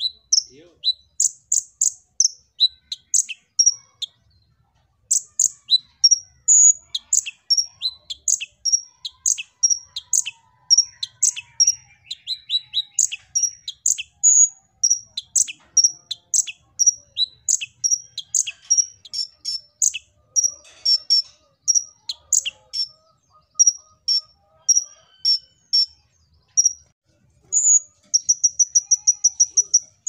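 Caged male sunbird singing: a long run of sharp, high chirps about two a second, with a short break about four seconds in. Near the end it switches to a fast, even trill.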